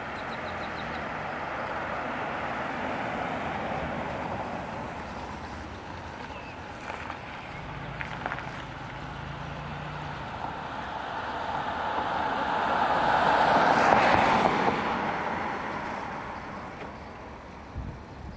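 Vehicle noise on a wet road: a minivan's engine and tyres as it drives up and turns into a driveway, with tyre hiss that swells and fades, loudest about two-thirds of the way through.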